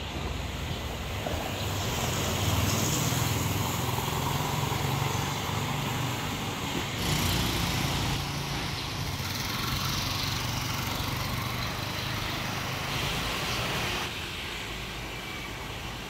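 Street traffic: a motor vehicle engine running close by, a steady low rumble, that drops away suddenly near the end.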